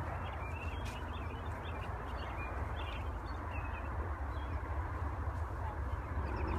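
Outdoor field ambience: a steady low wind rumble on the microphone, with many short, faint high chirps from small animals in the distance throughout.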